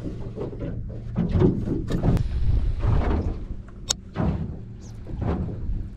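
Bumps, knocks and scraping of fishing gear and a plastic box being handled on a boat's deck, with a sharp click about four seconds in.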